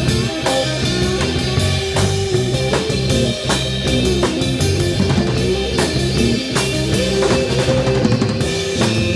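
Live instrumental rock band playing: a drum kit keeping a steady beat under electric bass and electric guitar.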